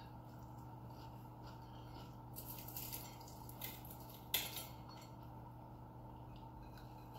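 Quiet eating at a table: faint handling of food and dishes, with a sharp clink of tableware a little past the middle, over a steady low hum.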